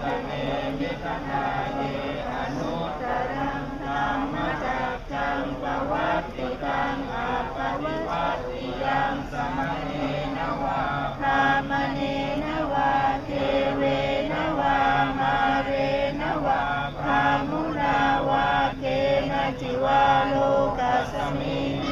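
Buddhist chanting in Pali: voices reciting a verse in a steady, rhythmic chant on held pitches.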